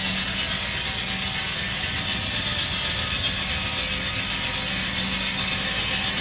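Belt-driven buzz saw's large circular blade cutting through a split firewood log: a steady high-pitched rasp that stops at the very end, over the 1954 Farmall Cub tractor's engine running underneath.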